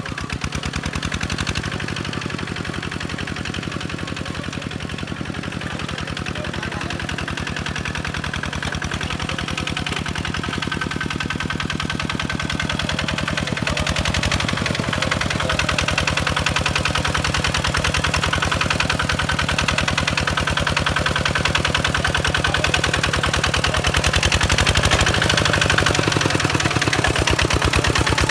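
Kubota single-cylinder diesel engine of a two-wheel walking tractor running steadily with a fast, even chugging as the tractor works through paddy mud on steel cage wheels. It grows louder toward the end.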